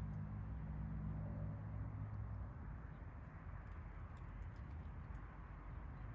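Low engine rumble of a vehicle going past, fading out about two and a half seconds in, over a steady outdoor background hiss.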